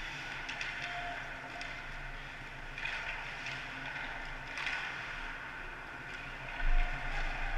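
Ice hockey rink ambience heard from the goal: skate blades hissing and scraping on the ice in swells, scattered faint clicks from sticks and puck, over a steady low hum, with one low thump near the end.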